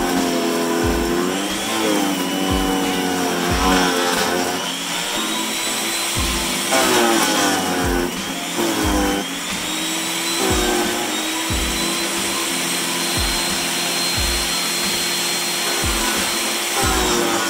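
Electric chipper-shredder running, its motor whine sagging in pitch each time branches are pushed in and load it, then climbing back up. Irregular low knocks of wood being chopped run throughout.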